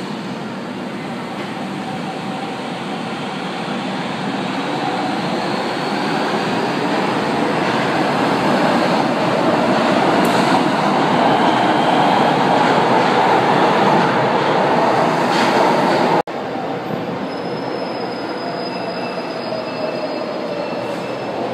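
Metro train pulling out of an underground station, its rumble and motor whine growing louder as it gathers speed. After a sudden cut, another metro train approaches on the far track with a faint high squeal.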